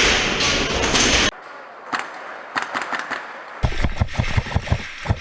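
A loud rush of noise cuts off abruptly about a second in. After that come scattered clicks, then a rapid run of short thuds and clicks during airsoft play.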